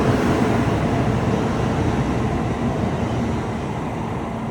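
Shinkansen train running along the platform, a loud, even rumble that slowly fades over the last couple of seconds.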